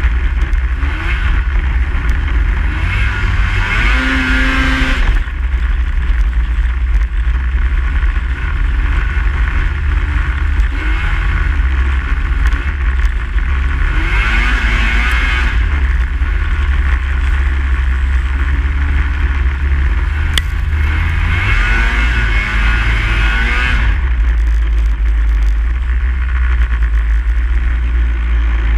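Snowmobile running under way with a heavy, steady low rumble throughout. Three times the engine note rises as it accelerates: a few seconds in, about halfway, and again a little later.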